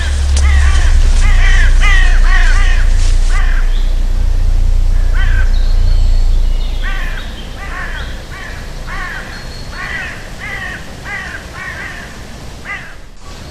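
Crows cawing over and over, about two calls a second, over a deep steady rumble that fades about halfway through.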